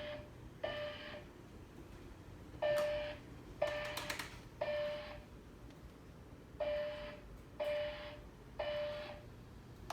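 Fire alarm voice evacuation speakers sounding a pitched alert tone in the temporal-three evacuation pattern: groups of three short tones about a second apart, with a pause of about two seconds between groups. A few clicks come in around three and four seconds in.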